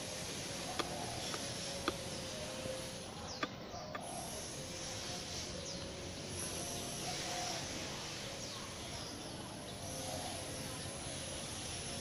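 Outdoor background noise: an even hiss with faint, indistinct mid-pitched sound, and a few sharp clicks in the first four seconds.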